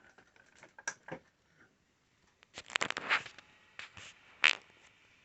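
A run of sharp clicks and knocks as the Creality Ender 3 V2 3D printer is started up, the loudest a cluster about three seconds in and a single knock near the end; right after it a faint, steady whine from the printer's fan comes in.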